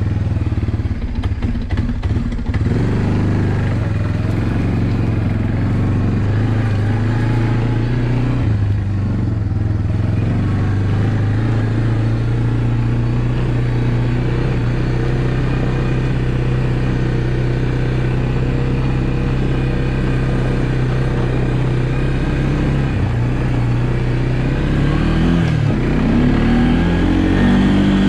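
Honda FourTrax 300 ATV's single-cylinder four-stroke engine running while riding, with clattering knocks over the first few seconds. The engine note steps down about eight seconds in, holds steady, then rises and falls as it revs near the end.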